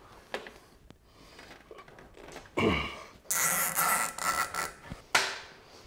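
Metal dust-extraction pipe being fitted overhead: a click, then about a second of scraping with a steady high tone in it, and a sharp knock near the end.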